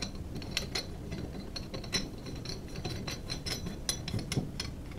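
Brass union nut being threaded by hand onto a brass valve body, its threads making a run of light, irregular metallic clicks.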